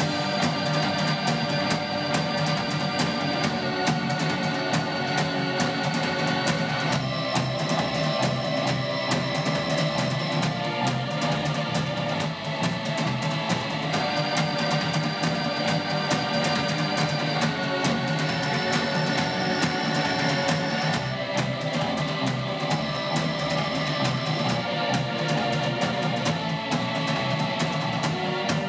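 Live rock band playing: a drum kit keeps a steady beat under held keyboard chords that change about every three to four seconds, with guitar.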